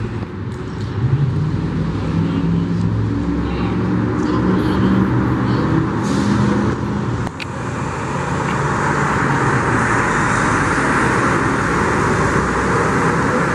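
Road traffic on a freeway: engines humming and tyres rushing as vehicles go by, getting louder about halfway through.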